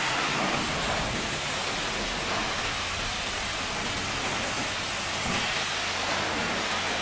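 Pressure-washer jet spraying steadily against the metal-framed deck panels of a livestock truck, a continuous hiss with water splashing and running off as the soap foam is rinsed away.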